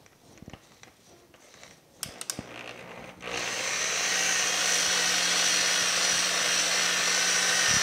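Electric rotary polisher with a foam pad switched on about three seconds in, after a few light clicks, then running steadily as it buffs No. 1 cutting compound into the color-sanded paint of a truck door.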